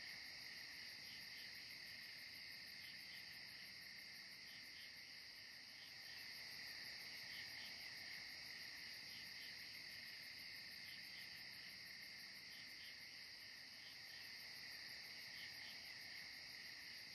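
Faint chorus of crickets and other insects: a steady high trilling with fast, even pulsing chirps over it.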